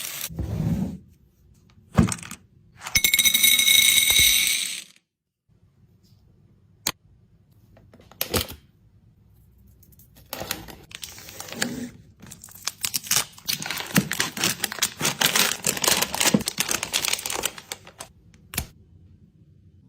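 Handling noises from craft materials: separate clicks and taps, a few short rustling or crinkling bursts, and from about twelve seconds in a dense run of rapid clicking and crackling lasting several seconds.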